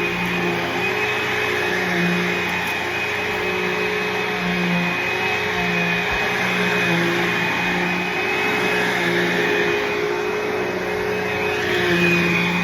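Bissell Cleanview II bagless upright vacuum (model 3576-2) running steadily while vacuuming, with a high whine and a lower hum that comes and goes every second or so.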